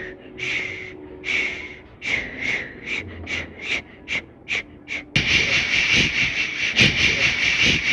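A person's loud, noisy breathing: separate puffs of breath that come faster and faster, then a steady hiss of noise from about five seconds in.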